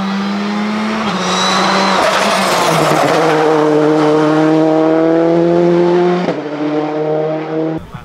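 Citroën C3 Rally2's turbocharged 1.6-litre four-cylinder engine running hard as the rally car drives by. The revs step down at gear changes, about a second in and again near three seconds, climb steadily to about six seconds, then drop at another change. The sound cuts off suddenly just before the end.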